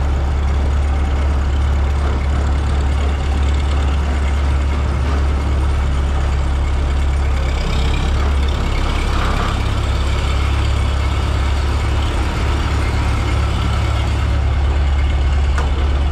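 Massey Ferguson 86 combine harvester's engine running as the combine is driven slowly forward: a steady low drone.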